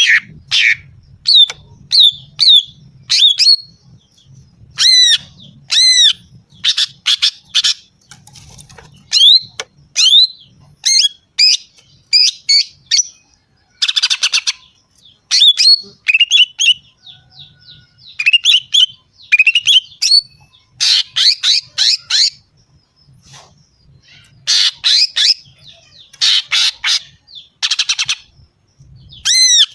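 Female cucak ijo (greater green leafbird) calling: short, sharp arching whistled notes repeated in quick runs, mixed with harsh buzzy rasps.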